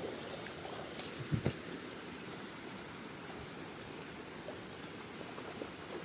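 Steady rushing of a forest waterfall, with a steady high hiss over it and a short low knock about a second and a half in.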